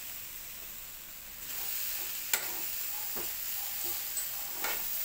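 Grated young coconut and sugar sizzling in a wok as a spatula stirs and scrapes through it, the coconut starting to brown. The sizzle grows louder about a second and a half in, and the spatula clinks sharply against the pan once about two and a half seconds in.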